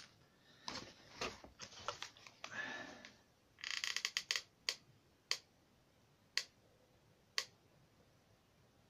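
Faint clicking from a handheld hot glue gun being worked on a paper model hull. Light card-handling rustles and clicks come first, then a quick run of clicks from the trigger a little before halfway, then single clicks about a second apart.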